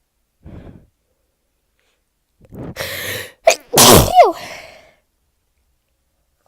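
A woman's sneeze from a heavy, congested cold: a faint breath, then a drawn-in breath, a short catch, and one loud sneeze with a falling voiced tail.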